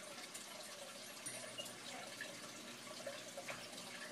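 Water in a saltwater aquarium trickling and splashing steadily, with many small drip-like ticks.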